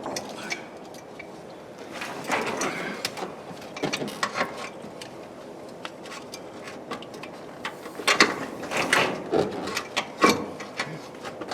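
Metal clicks and rattles of parts and hand tools being worked during an air-suspension compressor install, in several clusters: about two seconds in, around four seconds, and a longer busy stretch from about eight to ten seconds.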